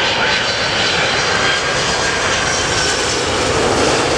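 Boeing 767 airliner on final approach, its jet engines running overhead as a loud, steady rushing noise with a faint high whine over it.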